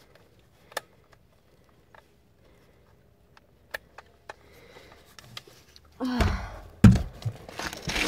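A few faint clicks and taps, then about six seconds in a run of loud thumps and scraping as a cordless power tool is handled close to the microphone. There is no steady motor sound: the tool is not running.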